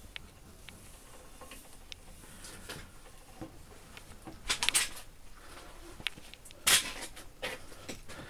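Light handling noises: scattered small clicks, with brief rustling or scraping about four and a half seconds in and again near seven seconds.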